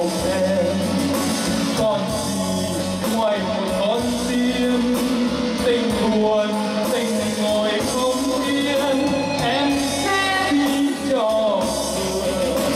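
Live ballad accompanied on an electronic keyboard with a backing rhythm and bass, with a male voice singing through a microphone.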